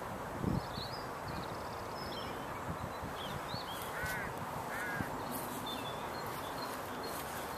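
Wild birds calling in open country: scattered small high chirps, and two short arched calls under a second apart about four seconds in, over a steady outdoor hiss. A soft low thump comes just after the start.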